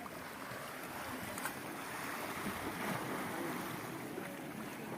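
Sea waves washing onto the shore: a steady rushing noise that swells about two seconds in.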